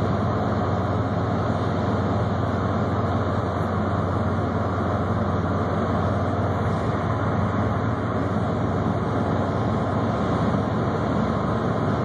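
Steady driving noise of a 1963 Chevrolet Corvair heard from inside the cabin: its rear-mounted air-cooled flat-six engine holding a constant low drone under road and wind noise at an even speed.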